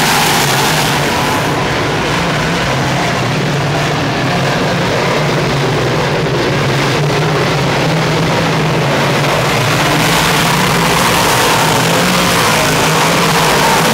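A pack of big-block dirt modified race cars running at speed, their V8 engines loud and steady.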